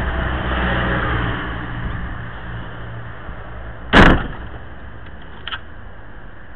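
Street noise with a low rumble that fades over the first few seconds, then a single sharp knock about four seconds in, close to the microphone.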